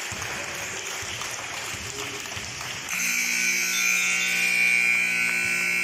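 Gym scoreboard buzzer sounding one long, steady blare about three seconds in, marking the end of the game; before it there is the general noise of the gym.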